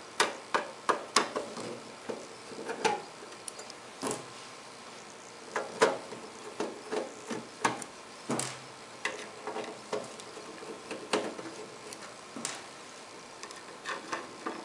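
Irregular light clicks and taps: small machine screws being lifted out of a sheet-metal equipment cover and set down on a wooden tabletop.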